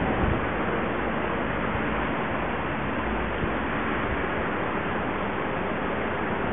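Steady wind noise on the microphone: an even rush with a low rumble underneath.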